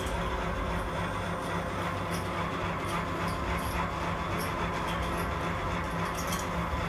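Steady low hum and hiss of background noise, with faint short squeaks of a marker drawing on a whiteboard.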